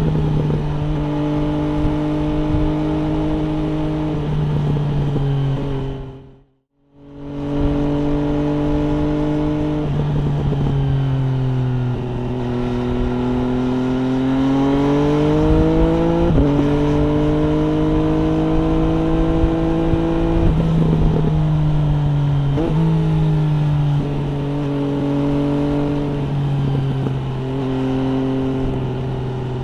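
MV Agusta Brutale 800 RR's three-cylinder engine running through an FF by Fresco aftermarket exhaust, heard onboard while riding at a fairly even pace. Its pitch rises and falls gently, with a few sudden steps. The sound cuts out for about a second around six and a half seconds in.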